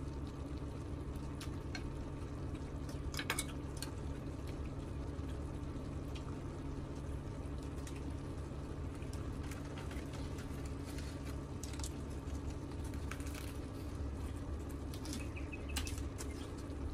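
Eating sounds from food eaten with chopsticks: wet chewing and mouth noises, with occasional short clicks of chopsticks against the pan, over a steady low hum.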